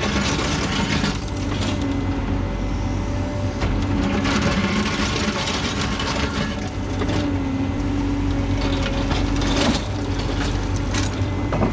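A construction machine's engine running steadily, its pitch shifting a little now and then, with scattered clanks and scrapes from the work.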